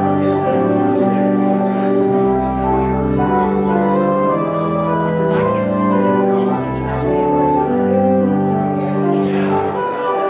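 Church organ playing slow, held chords over low bass notes, the chords changing every second or two.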